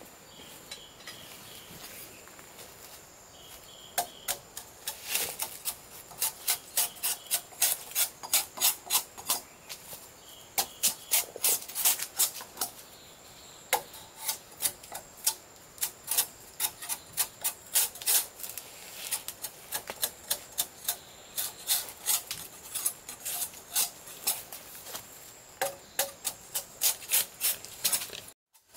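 Runs of quick, sharp knocks from hand-tool work, several a second, with short pauses between runs, over a faint steady high tone.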